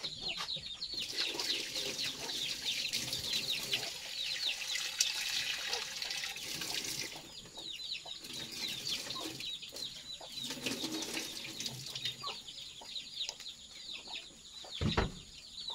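Chickens clucking with many short, high chirps throughout. In the first half a hiss swells for several seconds, and there is a single dull knock near the end.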